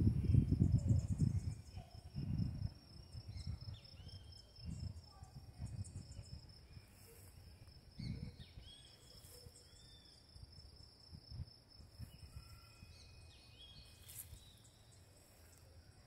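A high-pitched, steady insect trill, with a few short bird chirps scattered through it. Low rumbles on the microphone in the first couple of seconds.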